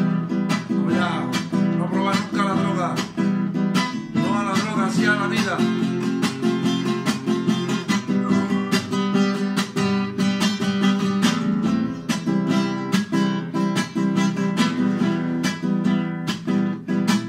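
Nylon-string classical guitar strummed in a steady, rapid rhythm, chord after chord.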